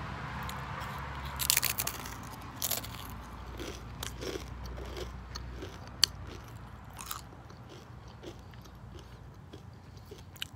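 Someone crunching and chewing Doritos tortilla chips close to the microphone: irregular crisp crunches, the sharpest about six seconds in, between quieter chewing.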